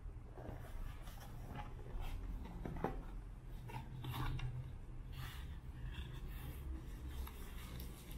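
A small cardboard box being handled and its tuck-in lid pulled open: scattered rubbing and scraping of cardboard against hands and the table, with a few light taps.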